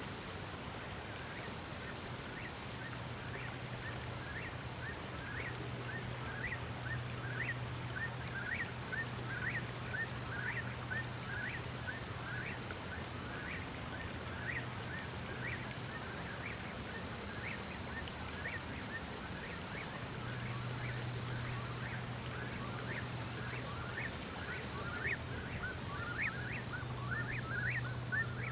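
Outdoor nature sound: rapid, repeated short chirping animal calls, two or three a second, over a high, steady, insect-like whine that switches on and off and a low hum that comes and goes.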